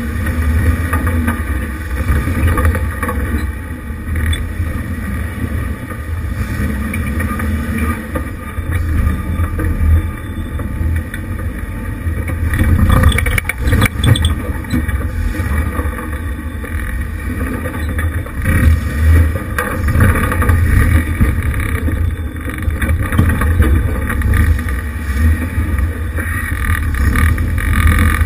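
1988 Jeep Wrangler YJ's engine running at low revs as it crawls over a rocky trail, with a few knocks about halfway through.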